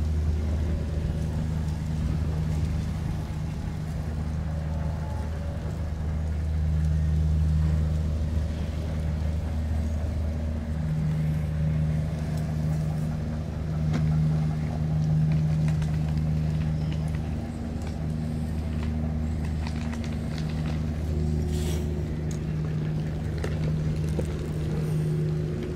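A steady low engine drone that hums on without a break, with the pitch holding level.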